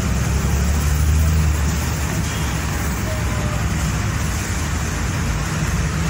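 Steady low rumble and road noise of a moving vehicle, swelling briefly about a second in.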